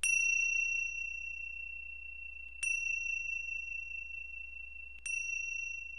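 A high bell-like chime struck three times, about two and a half seconds apart, each stroke ringing on a single clear tone and slowly fading, over a faint steady low hum.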